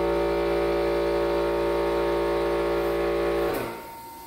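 Plasma cutter cutting through the welded corners of steel box-mounting braces: a loud, steady hum that cuts off about three and a half seconds in when the arc is stopped.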